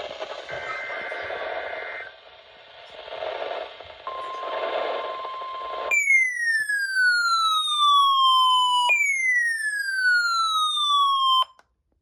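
Weather radio receiver hissing with static while a burst of alert data comes through as a screechy two-tone buzz, followed by a short steady tone. Then come two loud electronic alert sweeps, each falling in pitch over about three seconds and ending abruptly, just before a required weekly test message begins.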